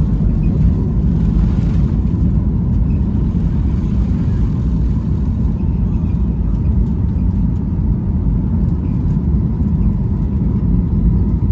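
Boeing 737-8 MAX's CFM LEAP-1B engines at takeoff thrust, heard from inside the cabin as a loud, steady, deep rumble with a thin steady whine, as the jet rolls down the runway and lifts off.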